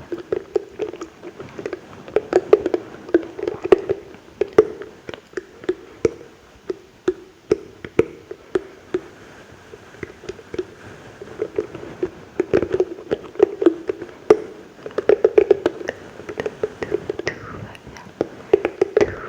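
Close-miked ASMR mouth sounds: wet clicks, smacks and tongue pops, coming irregularly and in quick clusters.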